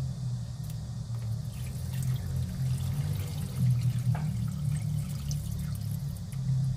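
Water poured from a glass jug into a stainless steel pot over fish bones, vegetables and lemon slices, filling it to cover the ingredients for fish stock; the pour stops near the end.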